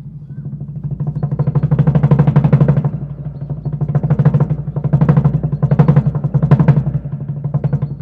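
A fast, even drum roll that swells louder and softer in waves, with a steady low ringing underneath, and fades out at the end.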